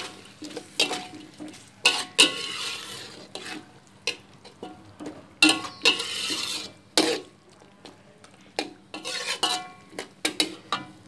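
A slotted spatula scraping and knocking against a steel wok as squid pieces in soy sauce are stir-fried, in irregular strokes about once a second, with bursts of sizzling between them.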